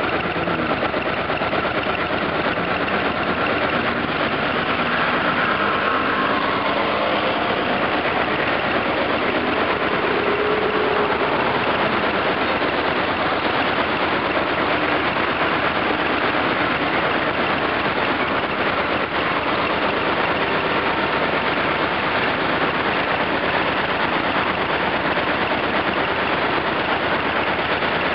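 Motorcycle engine idling steadily close by, a fast even pulsing that holds at one level, with cars passing through the intersection.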